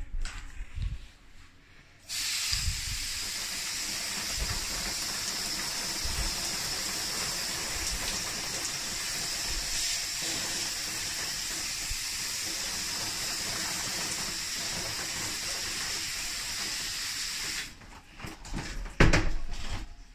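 Misting nozzle spraying a fine water mist: a steady hiss that starts about two seconds in and cuts off abruptly near the end. A few knocks and one louder bump follow.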